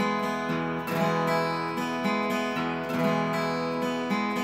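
Acoustic guitar strumming steady chords, its sound run through a Tonewood amp set to a slow delay.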